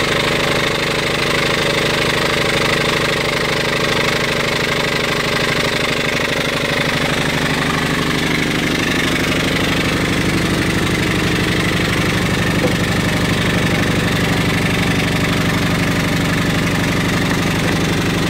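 Antique Bumsted and Chandler high-speed steam engine running wide open at about 800 RPM and driving a Johnson & Phillips dynamo, which is putting out voltage. It makes a steady, rapid mechanical beat, and its note shifts slightly partway through.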